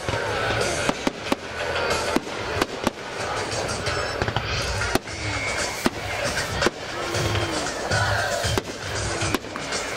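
Firework shells bursting in quick succession, a dense run of sharp bangs over steady music and voices.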